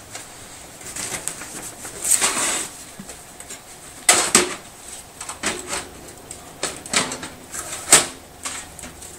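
Irregular scraping, clacking and knocking of metal and plastic as a part is pushed and worked into a computer case that it will not slide into, with a louder knock about four seconds in and a sharp one near the end.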